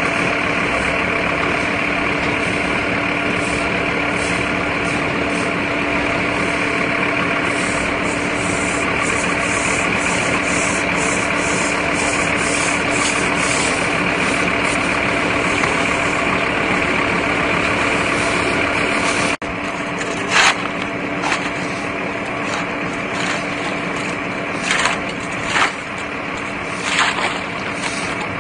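Flatbed tow truck's engine running steadily, a constant drone. About two-thirds of the way through it cuts off abruptly, and a quieter background follows with a series of short scrapes, a shovel scraping charred debris on wet asphalt.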